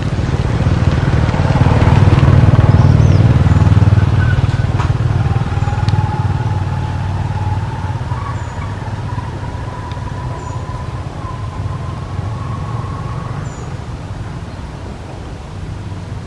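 A vehicle engine rumbling low, loudest a couple of seconds in and then fading, with a faint whine that slowly rises in pitch through the middle.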